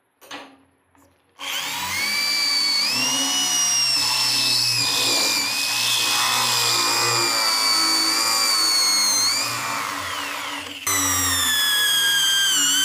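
Corded electric drill spinning a titanium-coated cone step bit against a rusty 14-gauge iron sheet: a steady high motor whine with the bit grinding on the steel. It starts about a second and a half in, stops briefly near the end and starts again. The bit is failing to cut the iron; the owner says it wore out and smoked on this hole.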